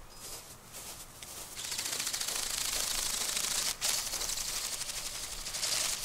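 Bionic Bird flapping-wing drone beating its wings fast, a rapid high clatter that starts about a second and a half in.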